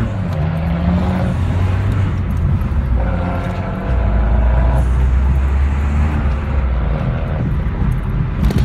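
Car engine running under light throttle with tyre and road noise, heard from inside the cabin; the engine note shifts up and down as the car drives slowly in traffic.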